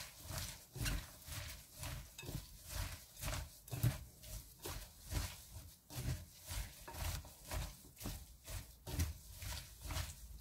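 A gloved hand tossing and kneading julienned raw radish with chili powder and seasonings in a glass bowl: a regular wet squishing and rustling, two or three strokes a second, as the seasoning is worked into the radish.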